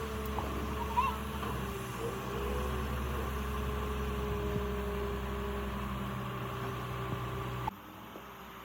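A large engine running steadily: a low, even drone with a faint click about a second in. It cuts off abruptly near the end.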